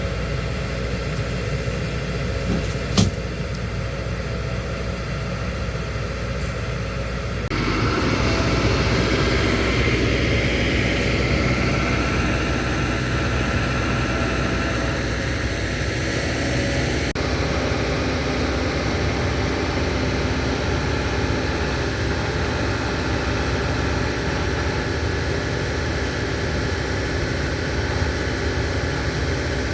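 Heavy engine running steadily, with one sharp knock about three seconds in. About seven seconds in the engine sound grows louder and rougher, and stays so.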